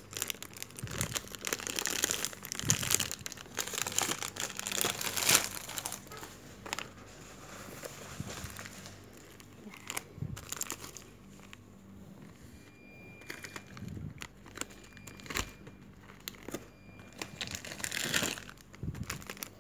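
Plastic snack and biscuit wrappers crinkling and rustling as they are handled, in irregular bursts: busiest for the first several seconds, then quieter scattered rustles, and another busy spell near the end.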